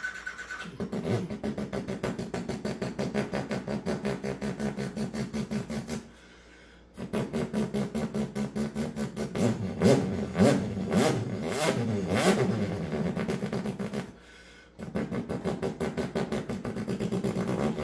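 A man imitating a Wankel rotary engine with his mouth: a pulsing idle, a short break, then several revs that rise and fall in pitch, another short break, and the pulsing idle again.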